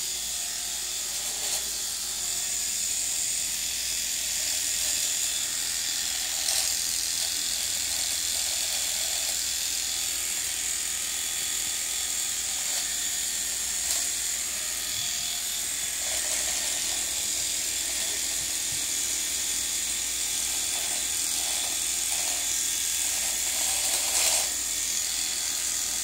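Three-head rotary electric shaver running steadily while it is worked over a beard.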